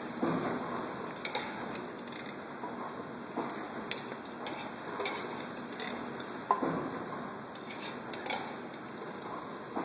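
Spoon clinking and scraping against the inside of a tin can of beef stew as it is eaten straight from the can, in irregular sharp clicks; the loudest comes about six and a half seconds in.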